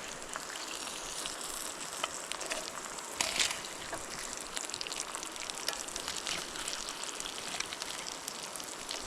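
Eggs sizzling as they fry in avocado oil in a pan: a steady hiss peppered with small crackles, with a brief louder burst about three seconds in.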